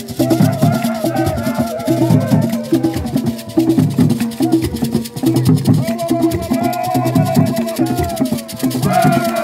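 Ewe borborbor music: hand-played wooden barrel drums keeping a driving rhythm, with beaded gourd rattles and handclaps, and a group singing in stretches over it.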